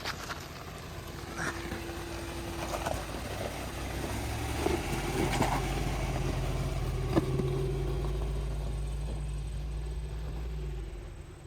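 Ram 2500 Power Wagon's 6.4-litre Hemi V8 pulling the truck slowly up a rock ledge. The engine note builds from about four seconds in and eases off near the end, with scattered sharp knocks along the way.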